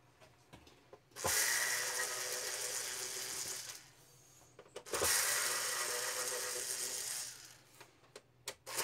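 A small motor runs in two bursts of about two and a half seconds each, starting and stopping abruptly.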